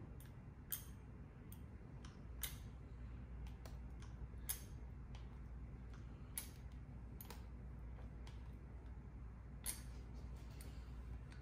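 Faint, scattered sharp clicks, about six in ten seconds, as a handheld meat injector is worked into a rack of pork ribs on a wire cooling rack, over a low steady hum.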